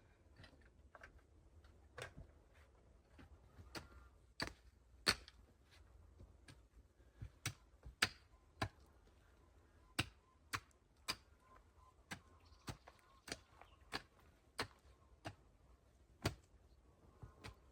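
Sharp irregular clicks or snaps, roughly one or two a second and unevenly spaced, some louder than others, over a faint background.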